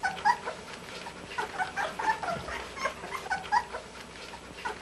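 Puppies whimpering and squeaking: many short, high calls overlapping one another.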